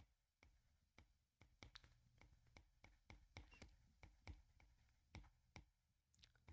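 Faint, irregular taps and clicks of a stylus writing on a tablet screen.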